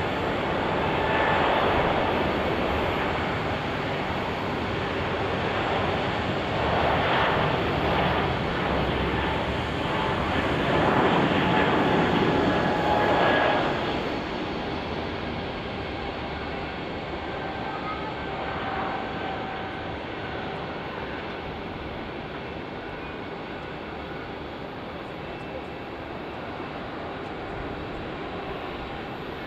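Bombardier CS100 jet's Pratt & Whitney PW1500G geared turbofans at takeoff power as it rolls down the runway and climbs out. The roar is loudest through the first half, then drops to a weaker, steadier roar as the jet climbs away.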